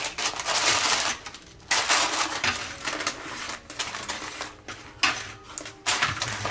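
Metal kitchen tongs clicking as they handle crisp fried chicken, the battered crust crackling against the paper lining of the basket, in a few separate bouts.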